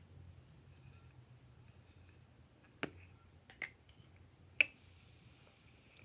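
Three sharp plastic clicks, the last the loudest, as a small tub of foam beads is handled and opened. About two-thirds of the way in, these give way to a soft, steady hiss of the foam beads pouring into a glass dish.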